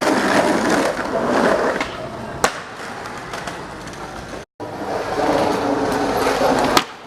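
Skateboard wheels rolling over pavement, with a sharp clack of the board after a couple of seconds and another near the end. The sound cuts out for a moment just past the middle.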